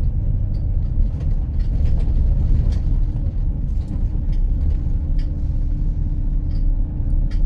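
A double-decker bus in motion, heard from inside on the upper deck: a steady low engine and road rumble with light rattles and ticks from the bodywork.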